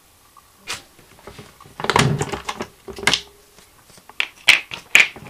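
Plastic clicks and knocks as the hinge covers and inserts of a Kohler toilet seat are handled and pulled off: a dense cluster of knocks with a dull thud about two seconds in, then a few sharp clicks near the end.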